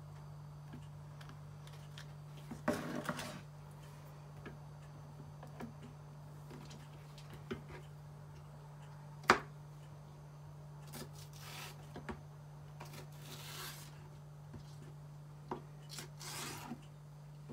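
Kitchen handling sounds over a steady low hum: a metal spoon rubbing and scraping sauce across a pizza base, scattered small clicks, a sharp knock about nine seconds in, and a knife slicing green stalks on a plastic cutting board near the end.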